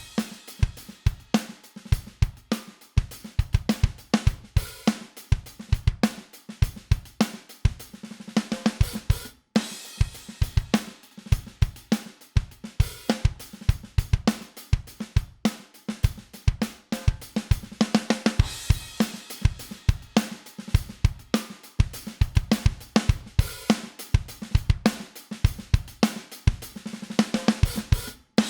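Recorded drum-kit groove played as a mixed drum bus: kick, snare, hi-hat and cymbals in a steady rhythm. The drums drop out briefly about nine seconds in and again just before the end.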